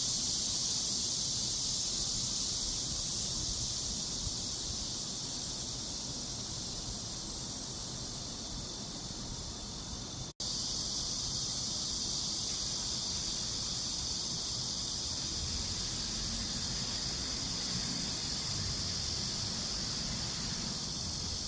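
Cicadas singing in a steady, continuous high-pitched drone, cutting out for an instant about ten seconds in.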